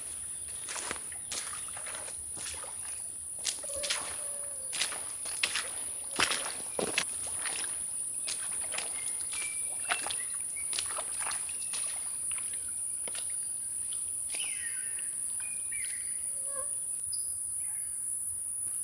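Footsteps through forest undergrowth, irregular steps that thin out and stop in the last third, over a steady high-pitched insect drone. A few short bird chirps come in the later part.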